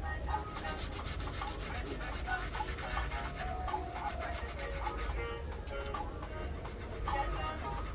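A brush scrubbing a water-damaged laptop motherboard to clean off the damage, in quick repeated strokes, with music playing underneath.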